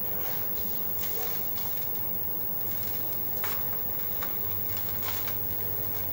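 Fingers scraping and crumbling the edge of a pressed cake of dry sand, grains scattering onto a tray with a soft gritty crackle and a few sharper crackles in the second half, over a low steady hum.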